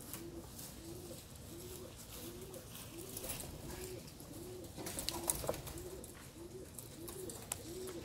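Domestic pigeon cooing, a steady run of short arched coos about one and a half a second, with a few light clicks about five seconds in.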